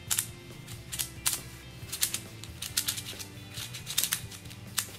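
Plastic keychain Penrose cube being turned quickly by hand: rapid, irregular clicking and clacking of the layers as they snap round, several clicks a second. Faint music runs underneath.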